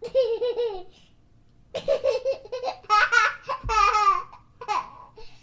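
A child laughing: high-pitched, pulsing bouts of laughter, about four in a row with short breaths between them.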